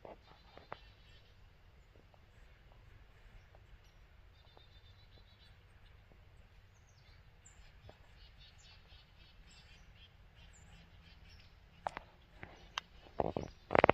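Small birds chirping and calling in woodland over a faint low rumble, with several sharp knocks in the last two seconds that are the loudest sounds.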